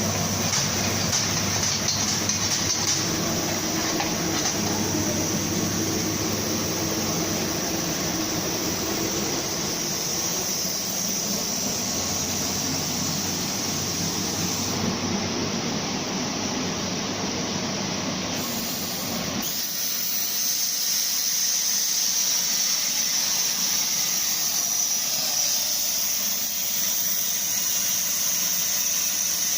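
CNC plasma cutting machine running, a steady loud hiss with a high whine from the plasma torch over a low machine hum. About two-thirds through, the low hum drops away while the hiss carries on.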